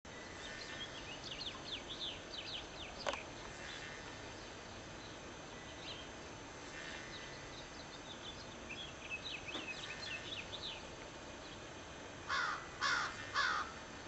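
Rapid high twittering of small birds in two spells, then a crow cawing three times near the end, the loudest sounds.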